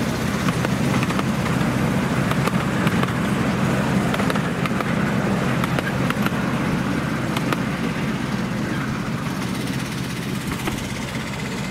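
Miniature ride-on railway train rolling past: a steady low mechanical hum with scattered clicks from the wheels on the track, easing slightly near the end as the last carriage goes by.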